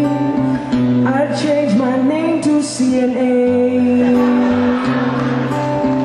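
Man singing to a strummed acoustic guitar, holding long notes that bend in pitch.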